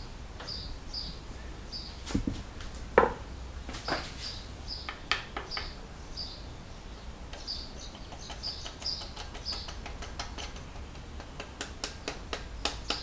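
Scattered metal clicks and knocks as a crankshaft main bearing cap is fitted squarely onto a diesel engine block, the loudest about three seconds in, with a cluster of quick clicks near the end. A bird chirps over and over in the background, about twice a second.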